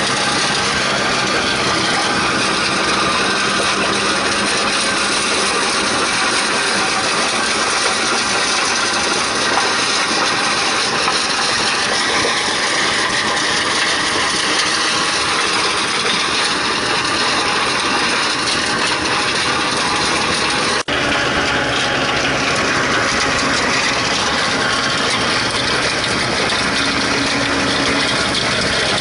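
Tractor-mounted, PTO-driven stone crusher working a stony field: the tractor engine runs under load while the crusher's rotor grinds stones in the soil, making a steady, dense mechanical noise. It breaks off for an instant about two-thirds of the way through, then carries on the same.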